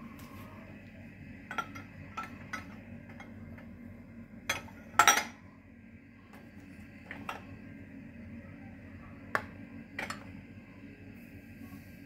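Crockery and glassware in a loaded dishwasher rack clinking and knocking together as it is handled: scattered sharp clinks, the loudest a quick pair about five seconds in.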